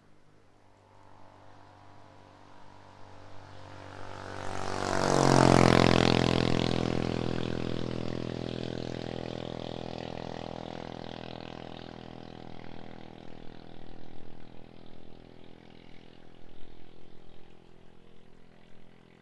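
A car drives past: its engine and tyres grow louder, pass about five seconds in with a drop in pitch, and fade slowly away. Gusts of wind rustle aspen leaves afterwards.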